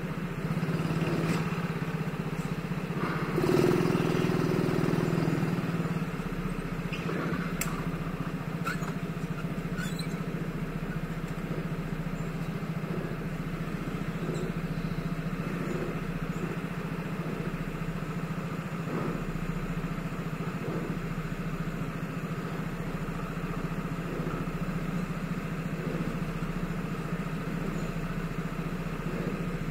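Kart engine idling steadily, with a brief swell a few seconds in and a few faint clicks.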